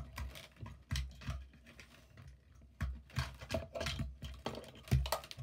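Irregular clicks and taps of small die-cast toy cars being handled and set down on a hard tabletop, with a quieter stretch in the middle and a busier patch of clicks in the last couple of seconds.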